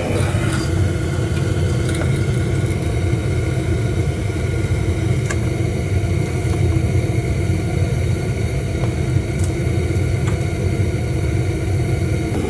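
Gas burner firing into a small furnace: a steady rushing flame noise with a strong low rumble, with a few faint ticks.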